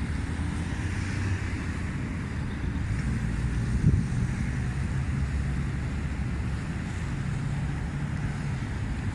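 Dust-storm wind buffeting the microphone with a steady low rumble, over road traffic running on the street alongside. A brief knock about four seconds in.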